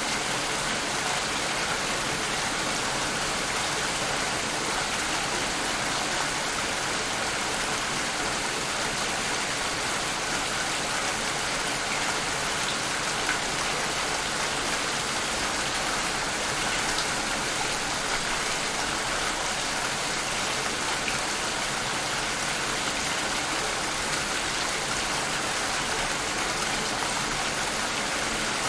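Steady rain falling, an even patter of drops on a surface that holds level without letting up.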